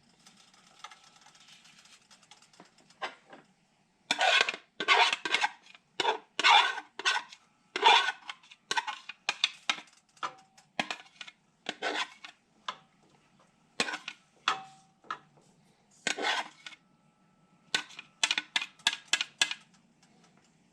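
A spoon clattering and scraping against a bowl and skillet as marinated venison cubes and onions are spooned into the pan: irregular clusters of knocks, ending with a quick run of taps.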